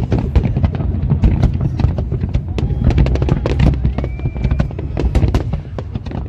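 Fireworks display going off in rapid, overlapping volleys: a dense run of sharp bangs and crackles over a continuous low booming rumble.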